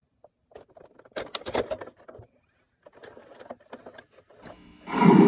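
A VCR taking in and loading a VHS tape: its mechanism clicks and whirs in short uneven bursts. Just before the end, the tape's soundtrack starts suddenly and much louder, with music.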